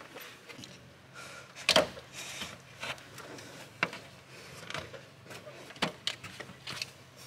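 Hand work on parts in a diesel truck's engine bay around the alternator: a series of light knocks, clicks and rattles of metal and plastic parts being handled, the loudest a sharp knock about two seconds in. A faint steady low hum runs underneath.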